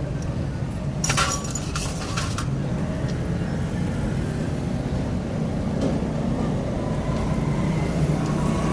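Steady low rumble of passing road traffic. About a second in comes a brief run of metal clinks as small engine parts and tools are handled.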